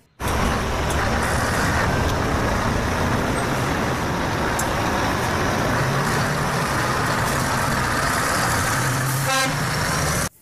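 Scania R500 Topline lorry's V8 diesel engine running loudly and steadily as the tractor unit pulls a box trailer, with a short fast rattle about nine seconds in.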